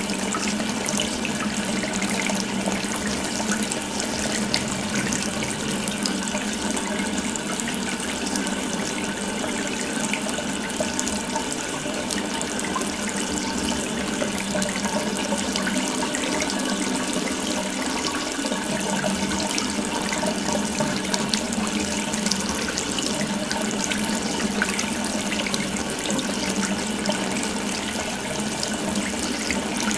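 Water running steadily from an open tap, a continuous even splashing flow.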